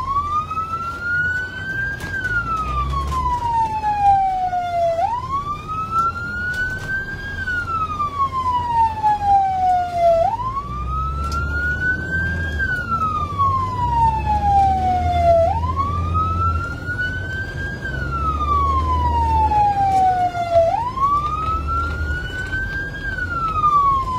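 Ambulance siren sounding a wail: the pitch climbs quickly and then sinks slowly, in about five cycles of roughly five seconds each. Beneath it is a low engine and road rumble heard inside a moving vehicle's cabin.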